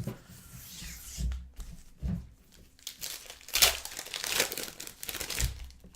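Plastic trading-card pack wrappers crinkling and tearing as packs are opened by hand, in irregular rustling bursts that are loudest about halfway through.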